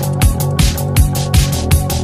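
Electronic dance music: a driving kick-drum beat whose hits each drop in pitch, over a deep sustained bass, with bright percussive hits above.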